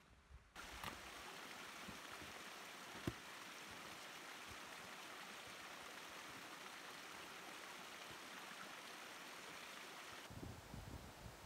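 Steady, even rushing noise that starts abruptly about half a second in, with a single sharp knock about three seconds in; near the end, uneven low thumps and rumbles take over.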